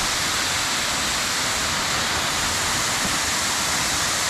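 A waterfall pouring over a rock cliff into a pool below, making a steady, even rush of water.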